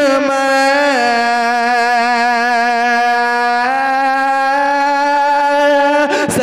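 A solo male voice singing a naat, holding one long drawn-out note with a slight waver. The pitch steps down about a second in and back up a little past halfway, and the note breaks off just before the end.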